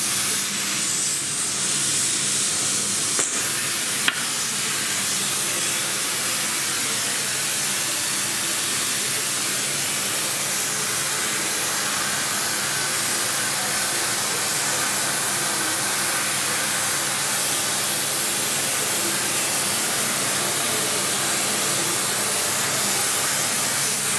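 Steady, loud hiss with a faint low hum beneath it, broken by a single click about four seconds in.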